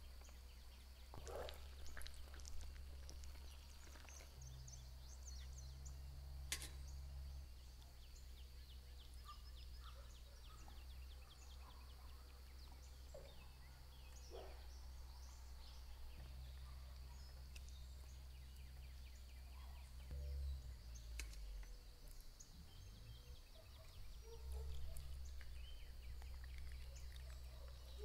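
Faint outdoor ambience: scattered bird chirps over a steady high hum and a low rumble, with occasional sharp clicks.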